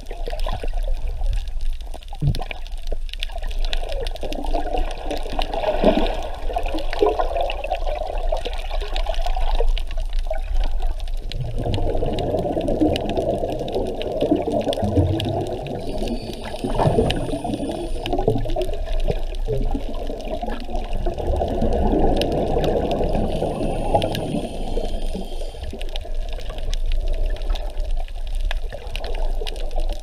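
Muffled water noise heard through an underwater camera housing: continuous sloshing and bubbling over a low rumble, heavier from about eleven seconds in.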